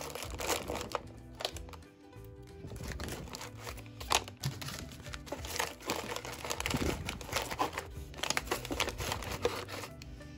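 Plastic packaging crinkling and rustling in irregular bursts as bagged craft items are pressed and arranged in a box, over background music.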